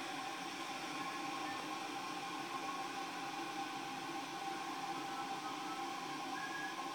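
Electric motor drive of a homemade working orrery running steadily, a continuous hum with a few steady tones over a hiss.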